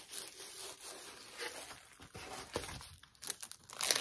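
A rolled diamond painting canvas rustling and crinkling as it is unrolled and smoothed out by hand, with louder rustles near the end.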